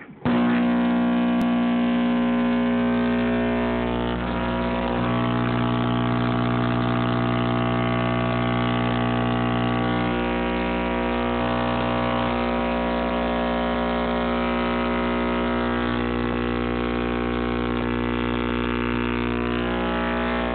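10-inch RE Audio MT subwoofer with Fi soft parts, wired directly to a wall socket, its cone driven by mains AC: a loud, steady, buzzy hum with many overtones that starts abruptly.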